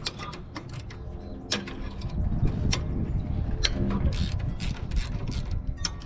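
Ratcheting combination wrench clicking in irregular runs as it works a bolt on a Scag zero-turn mower's steering handlebar, over a low rumble.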